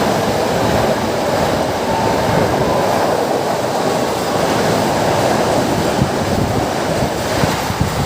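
A train running past on the rails: a loud, steady rumble of wheels and cars with no break.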